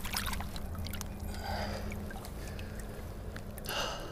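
Water splashing and trickling in short bursts, with a few small knocks and clicks over a steady low hum.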